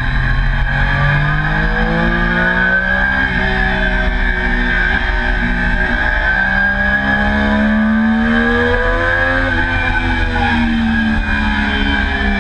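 Triumph Daytona motorcycle engine at racing speed on track, heard from on board. Its pitch climbs and falls with the throttle and gear changes: a long climb drops off sharply about nine and a half seconds in, then rises again, over a steady rush.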